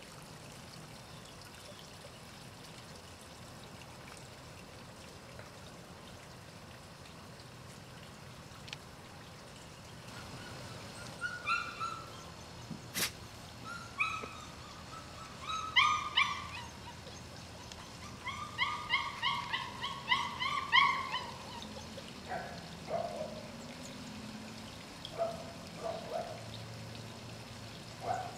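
A steady faint trickle of water, then from about a third of the way in, month-old Sarplaninac puppies whining and yelping in short high calls, with a quick run of yelps about two-thirds through and lower whines near the end.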